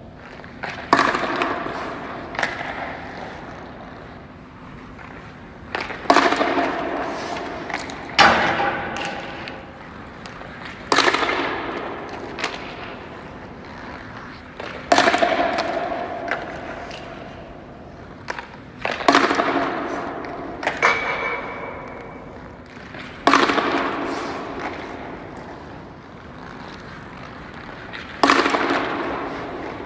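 Hockey pucks cracking off sticks and the boards in an empty ice arena: about a dozen sharp hits a few seconds apart, sometimes two close together, each echoing and ringing for a few seconds before dying away.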